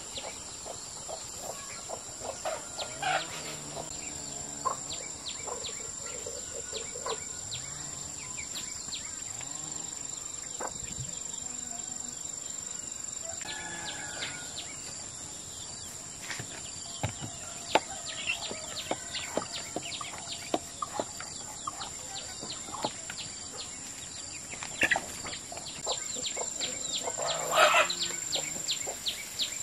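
Farmyard sounds: chickens clucking and chicks peeping in short scattered calls, over a steady high-pitched drone of insects. A louder burst of calls comes near the end.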